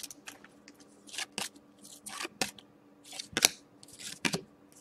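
Thick die-cut trading cards being handled and flipped through by hand, making short, irregular scrapes and sharp snaps as the card edges slide past one another.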